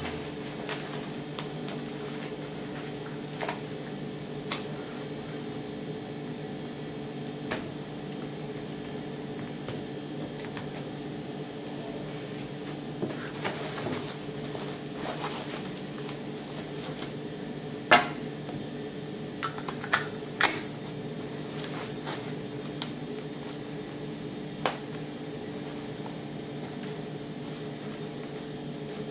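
A steady background hum, with scattered sharp clicks and knocks from gloved hands handling a nylon plate-carrier vest and a polymer FastMag pistol magazine pouch with a magazine in it. The loudest clicks come in a short cluster about two-thirds of the way through.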